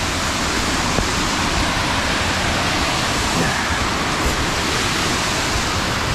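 Waterfall rushing steadily: an even, constant wash of falling water.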